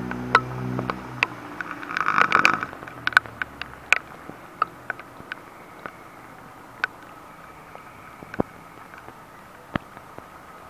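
A vehicle engine running low and steady for the first two seconds or so, with a brief louder rushing burst about two seconds in before it fades away. After that, scattered sharp clicks and snaps over a low, even background.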